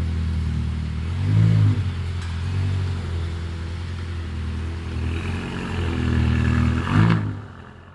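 A vehicle engine running, briefly rising in pitch and getting louder about a second and a half in and again near the end, then fading away.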